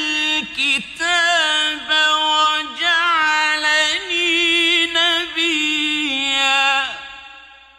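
A male Quran reciter chanting in the melodic mujawwad tajweed style: long held, ornamented notes with wavering turns and short breaks between phrases. The last note fades out with an echo near the end.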